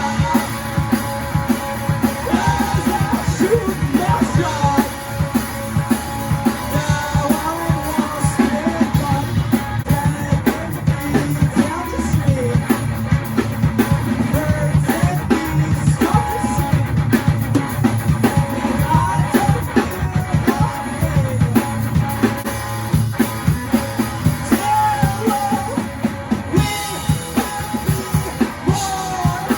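Rock band playing a song live at rehearsal: a drum kit keeping a steady beat under electric guitar.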